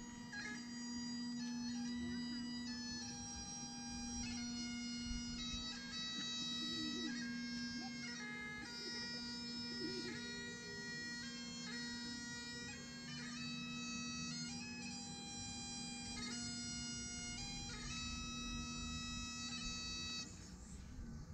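Highland bagpipes playing a slow tune over a steady drone, the pipes stopping about twenty seconds in.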